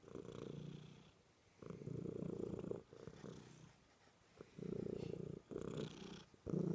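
Domestic cat purring, content while being cuddled. The purr comes in rhythmic stretches of about a second, with short breaks between them and a quieter spell around the middle.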